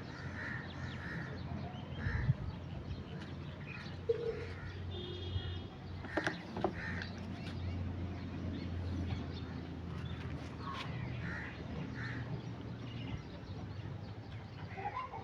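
Crows cawing on and off in the background, with a few sharp clicks and knocks over a low steady hum.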